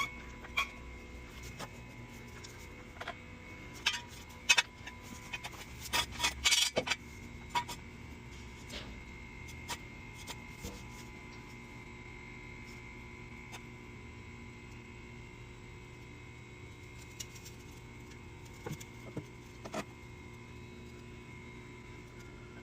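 Scattered metallic clicks and knocks of hand tools on a car wheel's lug nuts as they are loosened, with a cluster of louder clanks about six seconds in. After that only a few light clicks over a faint steady hum.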